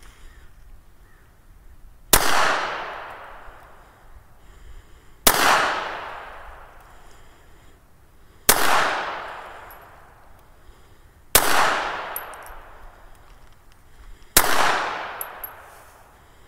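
Beretta Model 81B Cheetah .32 ACP pistol fired five times in slow aimed fire, about three seconds between shots, each crack followed by a long echoing decay.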